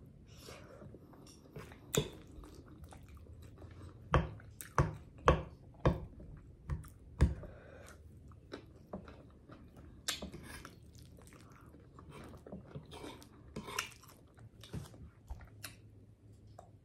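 Close-miked chewing and mouth smacking while eating chicken Alfredo ramen, with a quick run of loud, sharp smacks between about four and seven seconds in and softer, scattered ones after.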